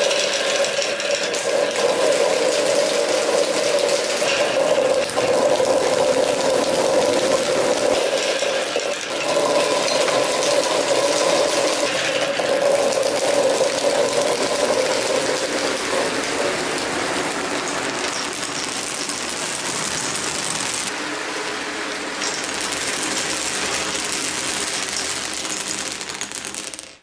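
Dozens of marbles rolling and clattering together through ribbed pop tubes and along wooden and plastic marble-run tracks. It is a dense, continuous rattle that cuts off suddenly near the end.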